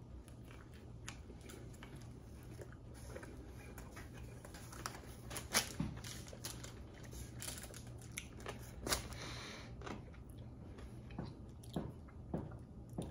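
A man chewing a mouthful of Impossible Whopper, soft mouth noises with scattered small clicks and a few louder smacks about five and a half and nine seconds in.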